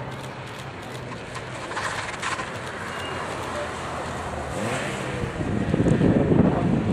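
A hill-climb car's engine running as the car drives past on the course, its pitch rising briefly about four and a half seconds in. From about five and a half seconds in, a loud low rumble of wind on the microphone covers it.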